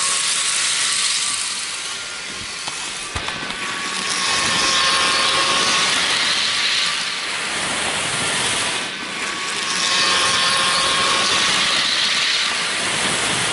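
HO scale model train running on its track: the locomotive's small electric motor whirring and the wheels rolling on the rails, a steady hissing whir that swells and fades every six seconds or so.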